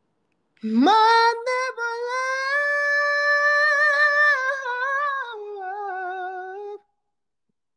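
A man's voice singing one long high note without words. It slides up into the note, holds it with a slight vibrato, drops a little lower near the end, then stops.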